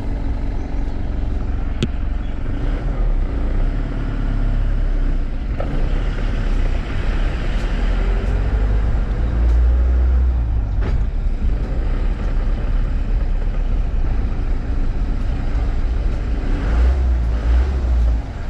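Car driving at low speed: a steady low rumble of engine and road noise, heard from a camera on the bonnet, with a few light knocks.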